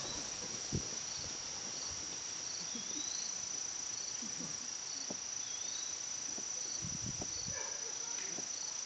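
Insects in a summer field making a steady, high-pitched drone, with a soft chirp repeating about once a second.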